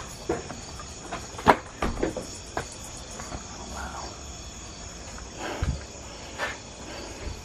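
Steady high chirring of night insects, with scattered footsteps and knocks; the loudest knock comes about a second and a half in.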